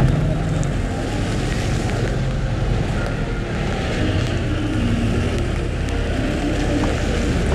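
A car driving in the rain: a steady low engine and road rumble with the hiss of tyres on a wet road.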